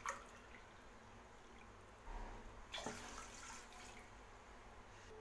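Water bubbling faintly as it heats in a stainless steel kadai on a gas burner, getting louder about two seconds in as it comes to the boil, with a few small pops.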